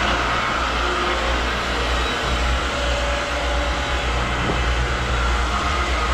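Two cooling-tower condenser water pumps running just after start-up: a steady low rumble and hiss with no change in level.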